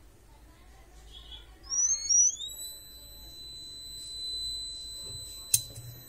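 Small buzzer on a homemade transistor fire-alarm circuit switching on as the soldering iron's heat trips the fire sensor. About two seconds in it gives a couple of chirps rising in pitch, then settles into a continuous high-pitched tone. A single sharp click comes near the end.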